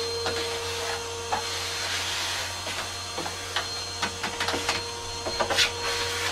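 Small shop vacuum running with a steady whine as its hose sucks up sawdust around a miter saw. Short clicks and taps of debris and the nozzle against the saw come more often in the second half.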